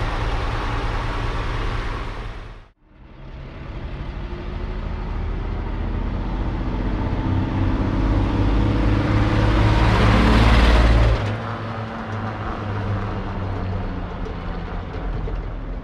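1949 Chevrolet 3800 truck's 235 cubic-inch inline-six running, broken once by a brief silence about three seconds in. The truck then drives up and past, its engine note building to its loudest about ten seconds in. It drops suddenly and runs on more quietly as the truck moves away.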